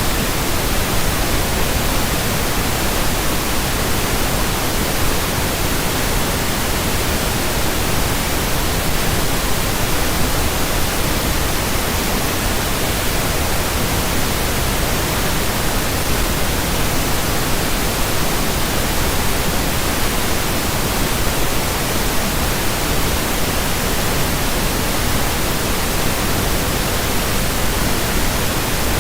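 Steady pink noise: an even, unchanging hiss spread across all pitches, with no breaks or changes.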